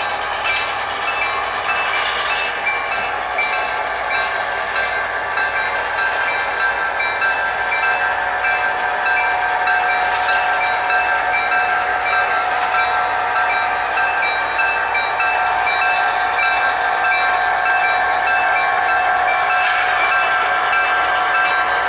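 HO-scale model diesel locomotive's onboard sound playing a steady diesel engine drone with a bell ringing in an even rhythm as the train pulls slowly out of the yard. It gets a little louder about a third of the way in.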